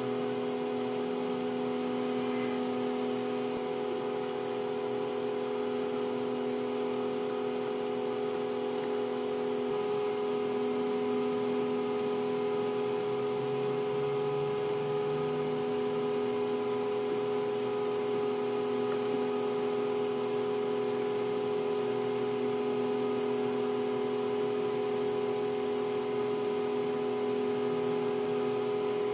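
Microwave oven running with a steady hum while it heats a stack of soap.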